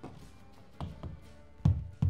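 Several dull knocks on engineered wood flooring, about four, the last and loudest near the end, with background music underneath.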